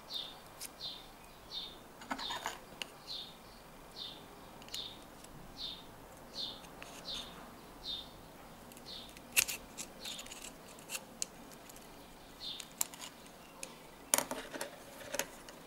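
Metal parts of a homemade blow-forward airgun bolt (tube, spring and fittings) clicking now and then as they are handled, with a louder cluster of clicks near the end. Under it a small bird chirps a short falling note about twice a second, then stops shortly before the end.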